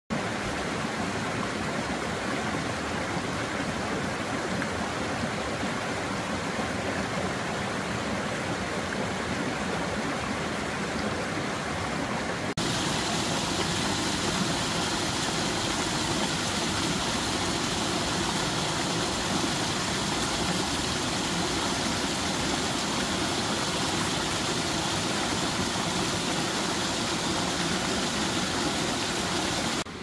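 Mountain stream rushing and splashing over granite boulders, a steady rush of water. About twelve seconds in it turns suddenly louder and hissier, close to water spilling fast down a mossy rock.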